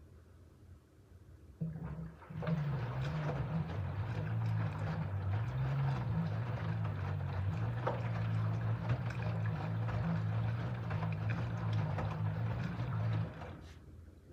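LG F13D9NC front-loading washing machine tumbling a wet load during a rinse. The drum motor starts about a second and a half in with a low hum that wavers in pitch, with water and wet laundry sloshing and splashing in the drum. It stops about a second before the end.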